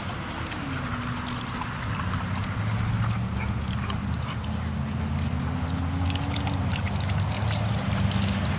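Dogs drinking at a push-button drinking fountain: running water and lapping, under a low drawn-out tone that bends slowly in pitch.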